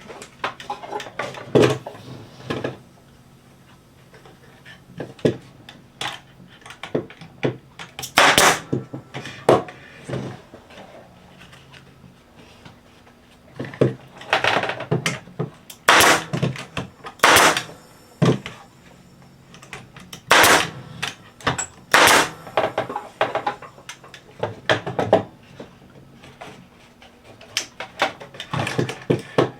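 Nail gun firing 1.25-inch nails into cedar fence pickets: a dozen or so sharp shots, spaced irregularly a second or more apart. Lighter knocks and clicks of the boards being shifted come between the shots.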